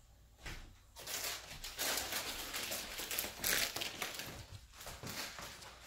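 Rustling and crinkling noise with many small crackles, starting about a second in.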